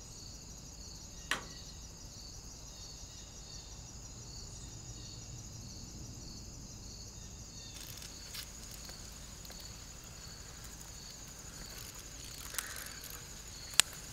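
Insects chirping steadily in a high, evenly pulsing trill, with a few sharp clicks: one about a second in, a louder one near the end.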